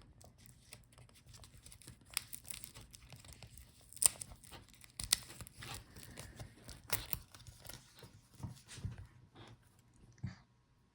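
Soft crackling, peeling and rustling with a few sharp clicks, from handling the back of a detached laptop LCD panel at its display cable connector.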